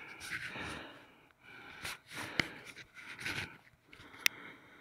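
A person breathing and sniffing close to the microphone: short noisy puffs about once a second. Two sharp clicks, one about halfway through and one near the end.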